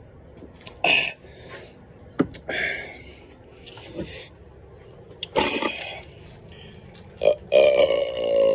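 A man's long, loud belch after rapidly chugging carbonated beer, starting near the end at one steady low pitch and still going at the close. Before it come a few short knocks and breathy bursts.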